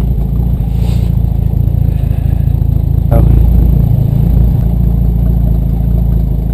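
1954 Dodge M37 Power Wagon's flathead inline-six engine idling steadily, with a single knock about three seconds in.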